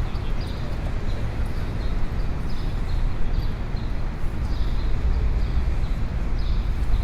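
Busy city street ambience: a steady low traffic rumble with a string of light, irregularly spaced clicks or taps over it.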